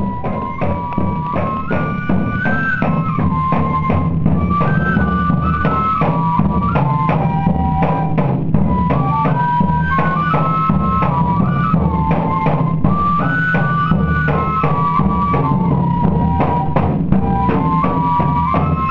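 Pífano (fife) band music: a bright fife melody moving in short steps over steady, busy drumming.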